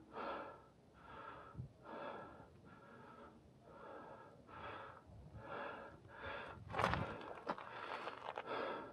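A man breathing hard and fast through the mouth, about one and a half breaths a second, out of breath from climbing a steep trail in the heat. A brief, louder scrape comes about seven seconds in.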